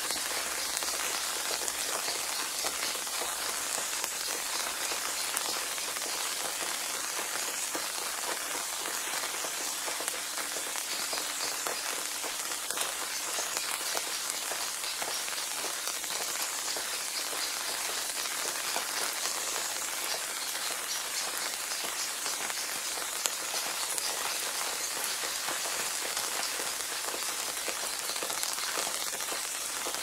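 Gentle rain falling steadily onto a small pond, drops hitting the water surface: an even hiss, weighted toward the high end, with many fine drop ticks.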